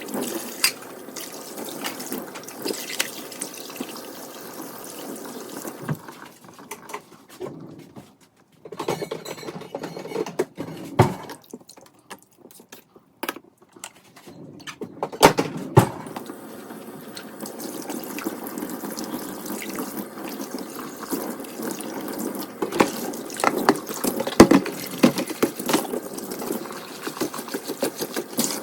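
Kitchen sink tap running water into the sink during dishwashing. The flow breaks off twice in the middle, and there are a few sharp knocks of items handled in the sink, the loudest about three-quarters of the way through.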